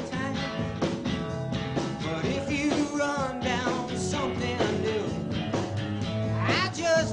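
Rock music from a band, with drums keeping a steady beat under guitar and a singing voice that wavers in pitch.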